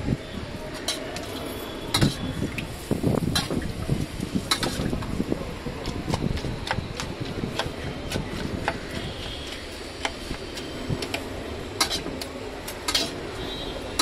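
A steel spoon clinking and scraping against steel pots and a plastic bowl as sauce is ladled over chopped onions and stirred, with sharp irregular taps a second or more apart over steady background noise.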